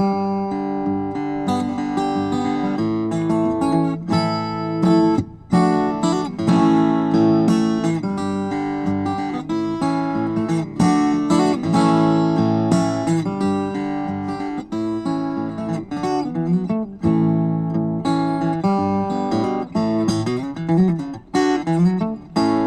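Solo acoustic guitar playing an instrumental piece, with short breaks in the notes about five seconds in and again near the end.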